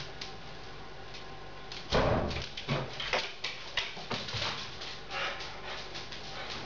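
A dog scrambles over a wooden gate: a heavy thump about two seconds in, then a run of knocks and clicks for a few seconds.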